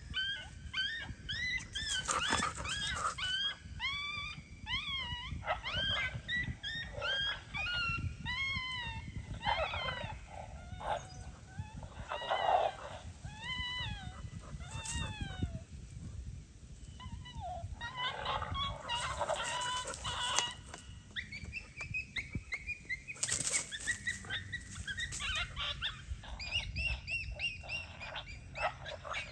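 Coyote vocalizations: a long run of short yips and whines, each note rising then falling in pitch, coming thick and fast, thinning out past the middle and picking up again near the end.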